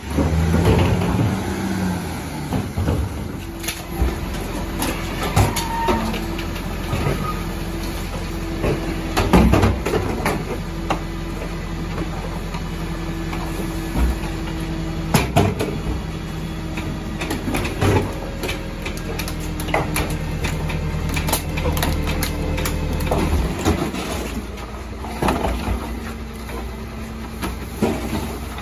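Garwood rear-loader garbage truck's engine running with its hydraulic packer working: a steady mechanical drone with a held hum. Repeated knocks and thuds come as a wheelie bin and bags are tipped into the rear hopper.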